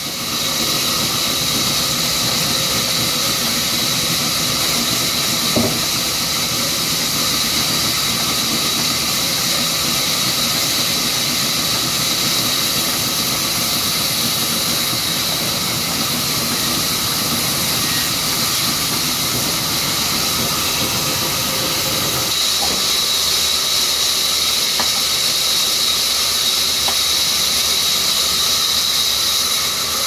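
Large sawmill band saw cutting a mango log: a steady high-pitched whine over a hiss of the blade running through the wood. About three-quarters of the way through, the lower rumble drops away and the high whine grows brighter.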